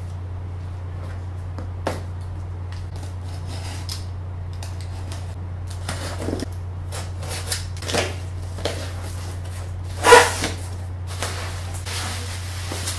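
A cardboard shipping box being opened by hand: a box cutter slicing the packing tape, cardboard flaps handled, and bubble wrap pulled out, in scattered clicks and rustles with one loud rustle about ten seconds in. A steady low hum sits underneath.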